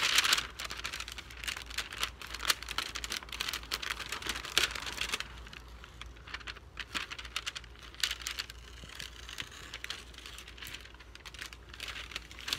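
Masking paper and painter's tape being peeled off a freshly spray-painted surfboard, the paper crinkling and crackling in quick bursts, quieter for a few seconds around the middle.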